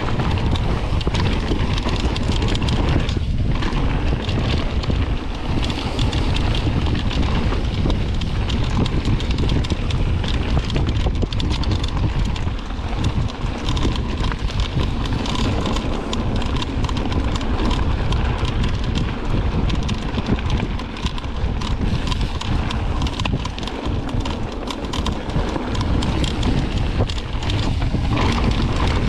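Mountain bike riding fast down a dirt singletrack: wind buffeting the microphone over the tyres rolling on packed dirt and gravel, with the bike rattling and clicking over small bumps.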